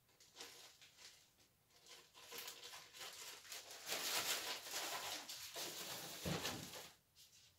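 Plastic packaging crinkling and rustling as it is handled, loudest around the middle, with a dull thump a little after six seconds.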